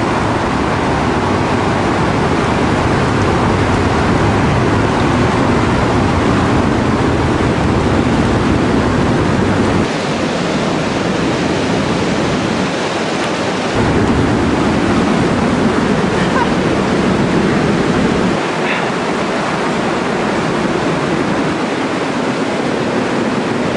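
Turbulent river water rushing over rocks in a loud, steady wash of noise, with a low wind rumble on the microphone that comes and goes.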